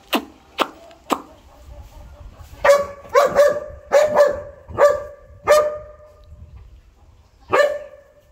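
A dog barking: three short barks, then a run of about seven longer barks, and one more near the end.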